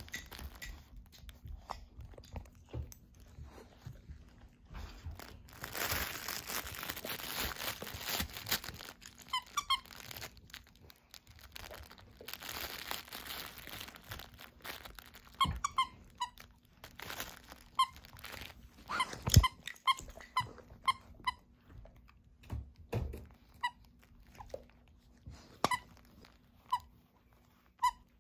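Husky chewing a squeaky plush dog toy, making it squeak in quick short squeaks, over and over, mostly in the second half. Two longer spells of crunching, rustling chewing noise come in the first half.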